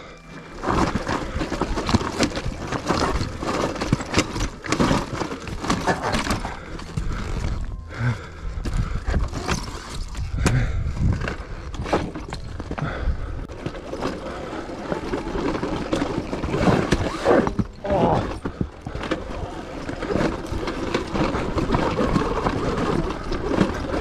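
Sur-Ron electric dirt bike climbing over rocks: tyres crunching and scraping on loose stone, with many knocks and rattles from the bike.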